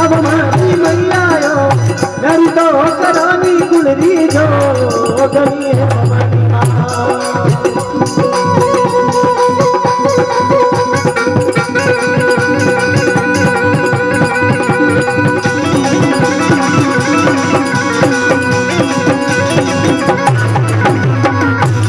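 Rajasthani folk bhajan music between sung verses, with a steady percussion rhythm. In the first few seconds a melody line slides up and down, then settles into held notes.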